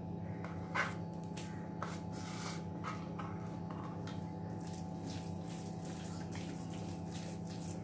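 Wet squelching and smacking of a hand kneading ground prawn vada mixture on a stainless steel plate, in irregular strokes with a sharper knock about a second in. A steady hum runs underneath.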